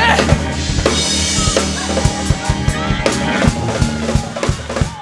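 Live gospel band music with a drum kit hitting steadily over held keyboard or organ chords, beginning to fade near the end.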